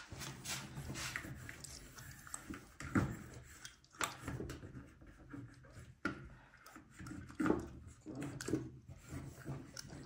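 Cloth wiping and rubbing over an electric stovetop and its solid hotplates: irregular scuffing strokes with a few light knocks.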